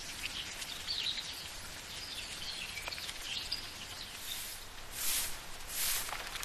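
Small birds chirping over a steady background hiss, then two brief swishes, about five and six seconds in.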